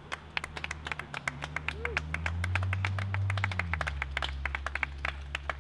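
Scattered hand-clapping from a small crowd applauding a trophy winner. A low vehicle engine drone swells and fades about two to four seconds in.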